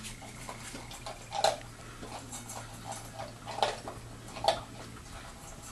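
Rhodesian Ridgeback puppy eating from a stainless steel bowl: scattered clinks of food and muzzle against the metal, with three louder clanks.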